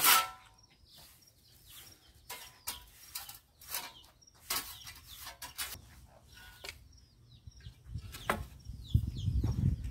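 Stiff broom scrubbing a soapy chicken-pen floor: about ten separate swishing scrapes at an uneven pace, with faint bird chirps.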